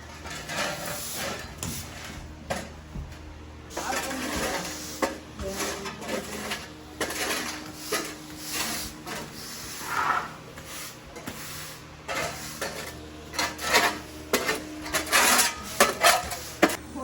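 Clattering, scraping and knocking of hand tools against debris during demolition work, irregular, with a run of louder, sharper knocks in the last few seconds.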